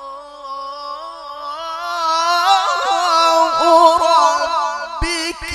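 A male qari's solo Quran recitation in melodic tilawah style: one long note drawn out on a vowel with wavering ornaments. About two seconds in it swells louder and climbs higher.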